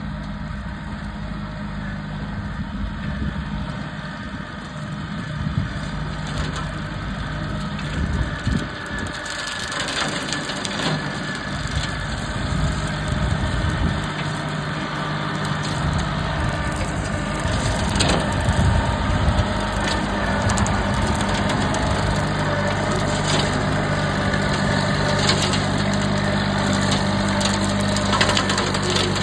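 Branson 2515H compact tractor's three-cylinder diesel running steadily under load, driving a rear rotary cutter (bush hog) through dry brush, with sharp cracks of brush and small wood being cut now and then. It gets louder as the tractor comes closer.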